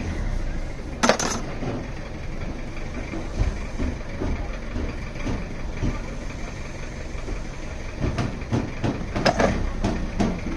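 Sharp metal clicks and scrapes of pliers working along the edge of a car radiator where the plastic tank meets the core: one loud click about a second in and a cluster of clicks near the end. A steady low rumble runs underneath.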